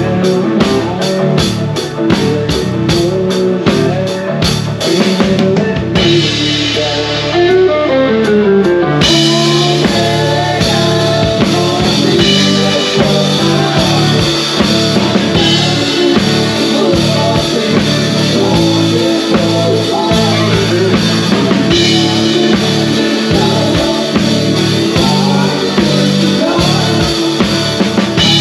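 Live country band playing: a drum kit keeping a steady beat under electric guitars and keyboard. About six seconds in the cymbals drop away for a few seconds, then the full band comes back in.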